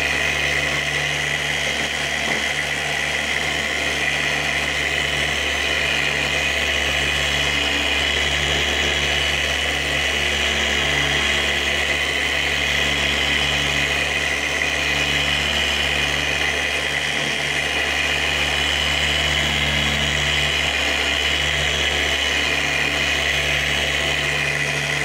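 Random orbital polisher running steadily with wet sandpaper on it, sanding the faded outer layer off a plastic headlight lens.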